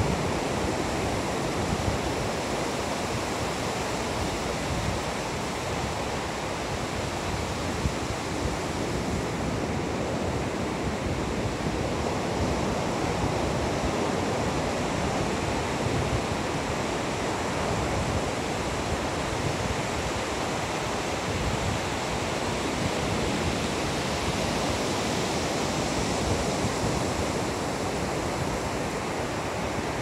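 Ocean surf: waves breaking in a steady, continuous wash with no distinct single crashes.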